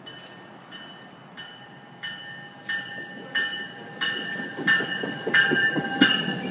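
NJ Transit commuter train pulling into the station, its bell ringing about one and a half strokes a second and growing steadily louder as the cab car nears. The wheels clatter over the rails in the last couple of seconds as the coaches roll past.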